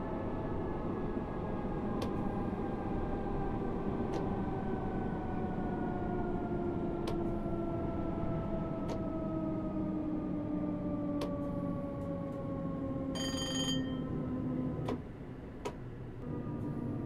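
Class 314 electric multiple unit's traction motor whine falling steadily in pitch as the train slows, over the rumble of the wheels and light clicks every second or two. A short high beep sounds near the end, and soon after the whine stops and the sound drops away.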